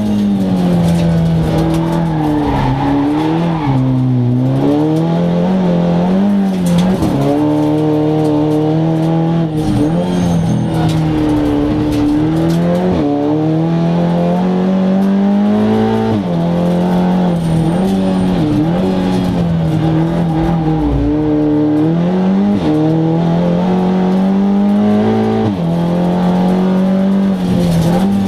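Seat Leon Cup race car's turbocharged four-cylinder engine running hard under racing, heard from inside the cabin. The pitch climbs and falls back again and again as the car accelerates, shifts and brakes for corners.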